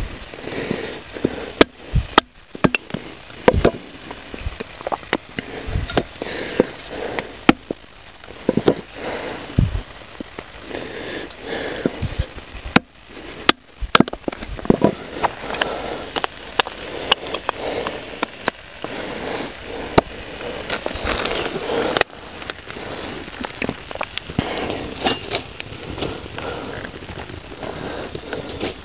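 Dry wood snapping and crackling: irregular sharp cracks and pops, some loud, over a steady crackle, as dry sticks are broken and fed to a campfire.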